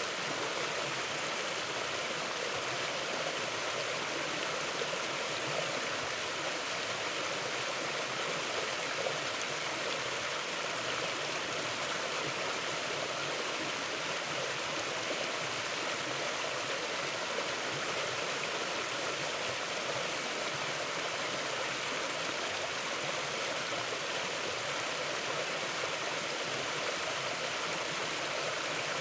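Mountain river flowing steadily over its bed, an even, unbroken sound of running water.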